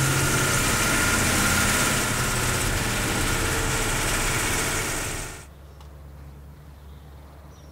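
Van engine running as the van drives along a lane, with a steady low hum under dense road and engine noise. About five and a half seconds in the sound drops away sharply, leaving only a faint low rumble.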